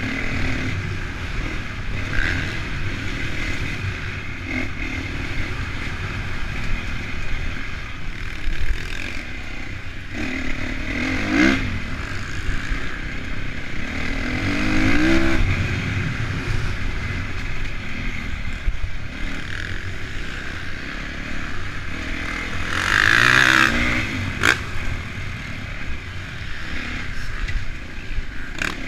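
Honda CRF450 single-cylinder four-stroke motocross engine heard on board while riding the dirt track, its revs rising and falling with the throttle. There are three louder revving surges, the last followed by a sharp knock.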